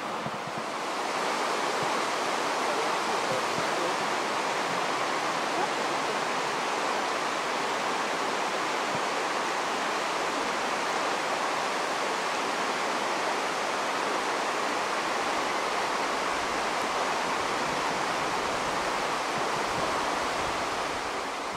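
Steady rush of a shallow river flowing over stony rapids, growing a little louder about a second in.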